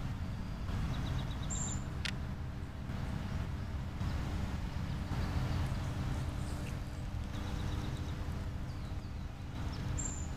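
Steady low outdoor rumble with a few short, high bird chirps, one about a second and a half in and another near the end.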